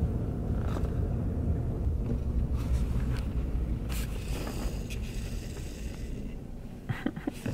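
Steady low road and engine rumble inside the cab of a pickup truck driving slowly, with a few faint clicks near the end.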